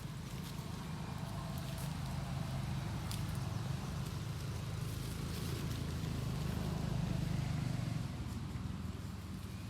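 A low rumble that slowly grows louder over several seconds and eases near the end, with a few faint clicks.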